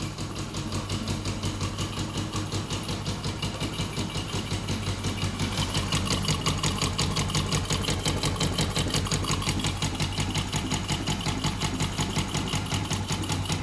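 Yamaha Jupiter MX single-cylinder four-stroke motorcycle engine idling steadily with an even, rapid pulse. It carries an odd noise that the owner cannot pin down and calls fairly subtle.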